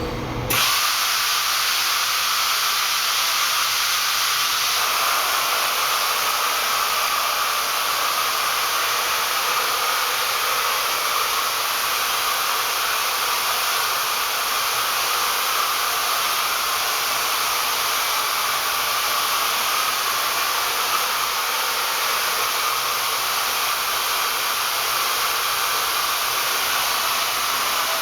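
Amada FLW-series fiber laser welding system running, heard as a steady hiss that starts abruptly about half a second in and holds unchanged.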